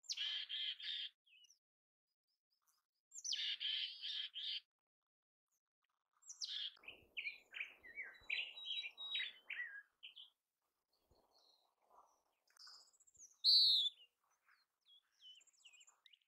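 Mountain chickadee calling: two short runs of rapid, harsh repeated notes near the start, then a stretch of quicker mixed chirps, and one louder, high sweeping note about thirteen seconds in.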